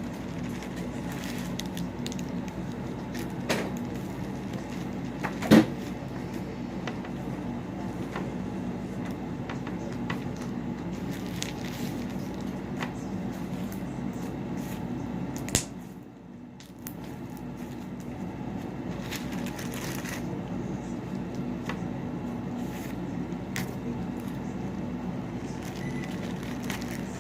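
Slime being kneaded and stretched by hand, with small scattered clicks and pops and a sharper pop about five seconds in, over a steady low hum.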